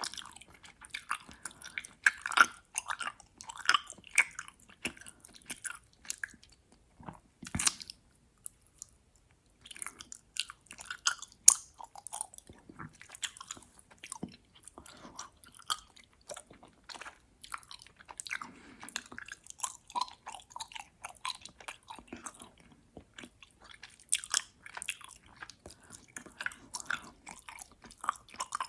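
Close-miked chewing of gummy worms: wet, sticky mouth sounds and smacks with many small irregular clicks. The chewing stops for a couple of seconds about a quarter of the way in, around one sharp click, then carries on.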